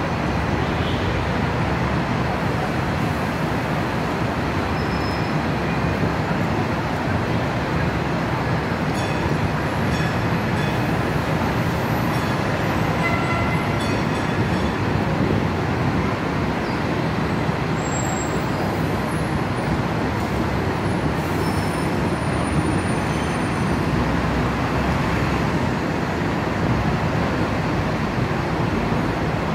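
Steady heavy street traffic noise from double-decker buses, trams and cars running and idling, with a constant low engine hum and no single event standing out.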